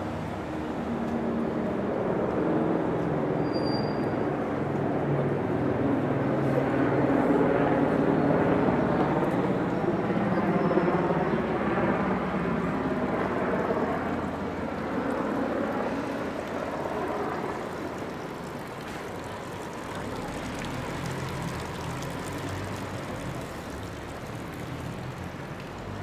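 A vehicle passing by: engine and road noise grow louder, peak about ten seconds in, then fade away.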